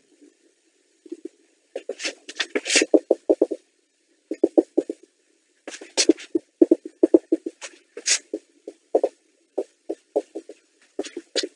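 Dry-erase marker squeaking on a whiteboard as curves and labels are drawn: short squeaky strokes of rapid stick-slip chatter, with brief pauses between strokes.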